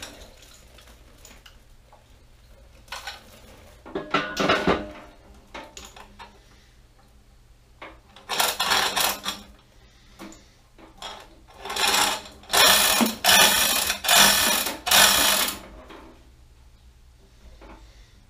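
Metal tools and lathe parts being handled: clattering and scraping in several bursts, the loudest run of them about two thirds of the way through.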